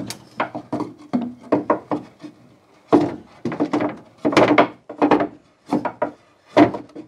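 A large projector screen frame knocking and scraping against timber ceiling framing as it is pushed and angled up into its mounting brackets: an irregular run of short wooden knocks and rubs, busiest in the middle, as the frame's edge catches on the timber.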